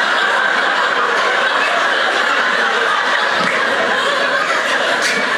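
Theatre audience laughing, a steady sustained wave of crowd laughter.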